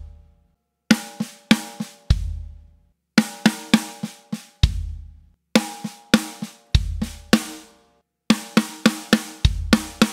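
Snare drum and bass drum played with sticks and kick pedal in short sticking groupings (right, left, kick), from four-note up to eight-note patterns. Each grouping is a quick burst of strokes followed by a pause of about a second, with the snare ringing on after the hits.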